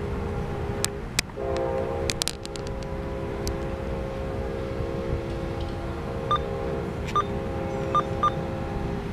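Train horn sounding a long held chord of several notes as a locomotive approaches the crossing, broken briefly about a second in. A few sharp clicks come near the start.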